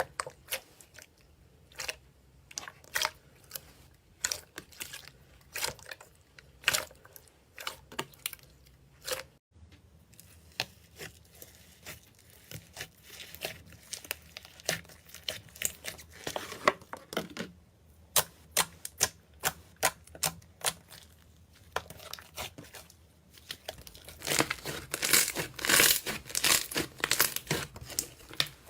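Slime being pressed and worked by hand, giving a run of sharp crackling clicks and pops. A cut to another clip comes about nine seconds in, and the crackles grow thickest and loudest near the end.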